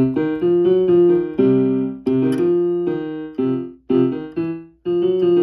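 Keyboard played with a piano sound: a string of chords struck one after another, each ringing and fading before the next.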